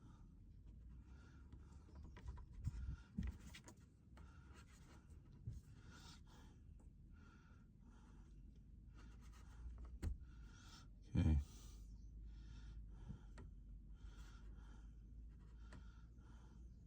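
A person breathing heavily, a soft puff about once a second, with a few scattered knocks and one louder thump about eleven seconds in.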